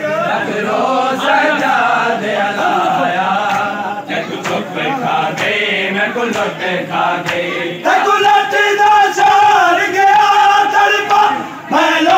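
A crowd of men chanting a Muharram mourning chant together, with a few sharp slaps in the middle. From about 8 s the voices settle into a louder, held sung line.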